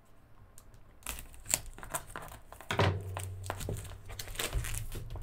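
Scissors cutting and plastic wrapping crinkling and tearing as a long cardboard kit box is opened by hand, starting about a second in, with a thud about halfway through.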